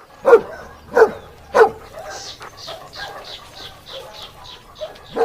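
A dog barking three times in quick succession, then a run of softer, higher-pitched calls about three a second, and one more bark at the end.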